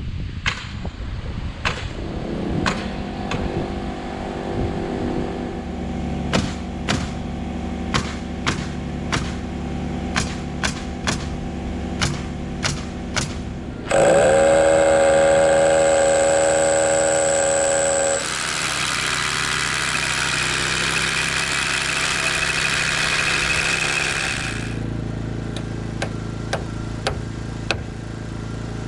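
Framing work: a run of sharp nailing shots, a few per second at times, over a steady engine-like hum. About halfway through, a loud power-tool whine starts suddenly and runs for a few seconds. A loud hissing rush follows and cuts off abruptly, then the hum and nailing shots resume.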